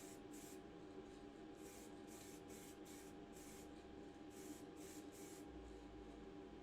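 Faint, short hisses of grey primer being sprayed, in repeated quick puffs that come in small clusters, over a low steady hum.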